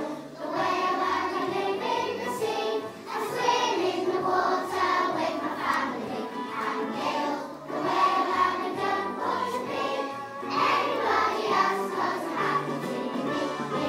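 A class of young children singing a song together as a group, with an instrumental accompaniment holding low notes beneath the voices.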